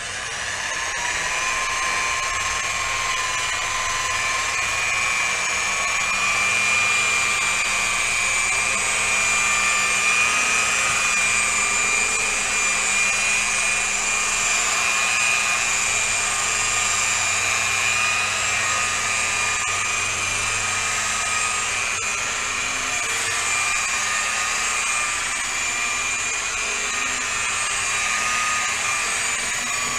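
Electric rotary polisher with a foam buffing pad running against a freshly wet-sanded, spray-painted car fender, buffing out the paint. It spins up with a rising whine in the first second, then runs steadily, its high whine wavering slightly as the pad is worked over the panel.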